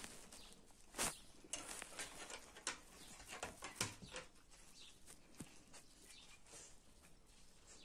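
Dogs moving about on wooden deck boards: scattered quiet clicks and scuffs of paws and claws on the wood, mixed with handling and mouthing sounds, the sharpest click about a second in.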